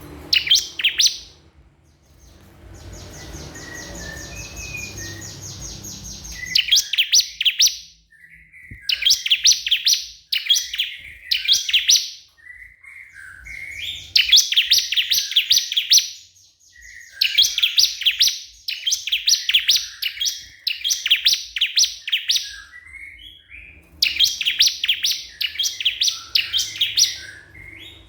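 Ciblek kristal (a crystal-voiced prinia) singing in full voice. It gives repeated bursts of rapid, sharp, high notes every few seconds, with lower twittering between them, and a softer, fast rattle a few seconds in. This is the challenge song it uses to call out a rival bird.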